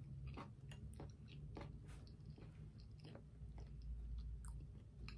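A person chewing french fries close to the microphone: a run of small, quiet chewing clicks, about two a second.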